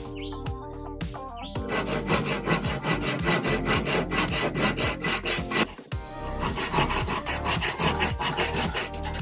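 Wood being worked by hand in quick back-and-forth abrasive strokes, about four or five a second, starting about a second and a half in and pausing briefly near the six-second mark.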